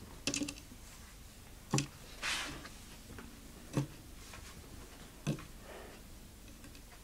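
A few light knocks of small rubber toy lizards being set down on a wooden box top, spaced a second or two apart, with a brief soft rustle between them.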